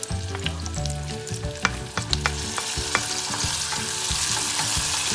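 Onion, tomato and garlic sautéing in a hot pan: a sizzle that grows louder about halfway through, with a cooking utensil clicking and scraping against the pan as they are stirred in the first few seconds.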